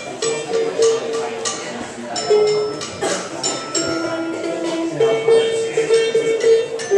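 A ukulele played loosely, with repeated picked notes and occasional strums, over the murmur of people talking in the room.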